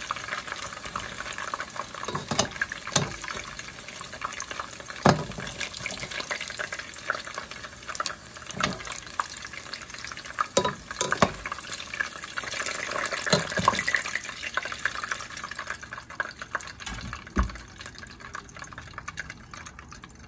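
Hot oil sizzling in a pot as fried okra is lifted out with metal tongs, with the tongs clicking and scraping against the pot many times.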